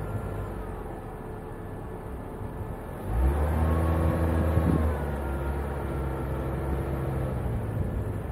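Renault Koleos SUV engine pulling through soft sand. It gets sharply louder about three seconds in for nearly two seconds, then settles to a steady, lower drone.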